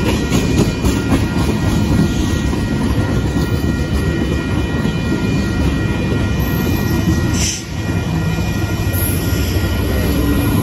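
Freight train tank cars rolling past at a grade crossing: a loud, steady rumble of steel wheels on rail, with a few faint steady high tones over it and a short dip in the noise about seven and a half seconds in.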